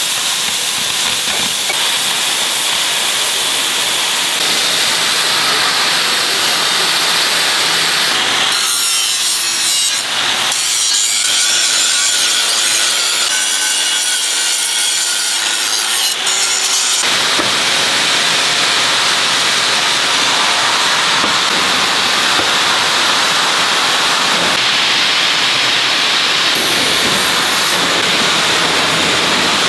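An oxy-fuel cutting torch hissing steadily on steel plate for the first several seconds, then an angle grinder grinding the steel edges for the rest, its pitch and grinding texture changing about halfway through.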